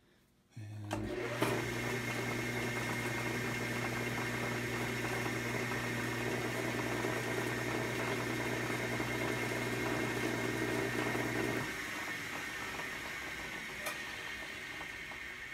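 Logan Model 200 metal lathe switched on, its electric motor and spindle running up to speed with a steady hum and a high whine. Near the end the motor hum cuts out and the spindle coasts down, the noise fading.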